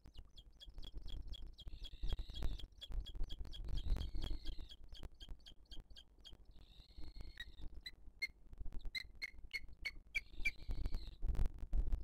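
Booted eagle calling at the nest: a rapid run of short, high-pitched notes, then several drawn-out shrill whistled calls and more short notes, over a low rumble.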